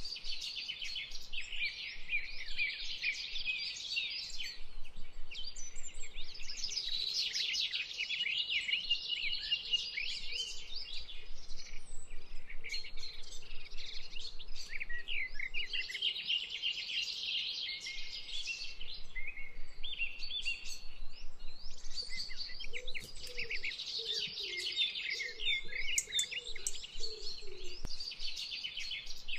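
A dense chorus of many small birds chirping and twittering without pause. A fainter, lower warbling call joins in for a few seconds near the end.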